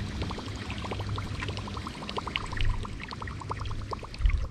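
Water lapping and splashing against a bass boat's hull in many small irregular ticks, over a steady low hum, with a low thump near the end.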